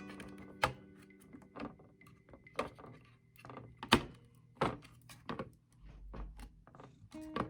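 Sharp knocks and clicks from PC parts being handled during a build, about a dozen separate taps, the loudest about four seconds in, over soft acoustic guitar music.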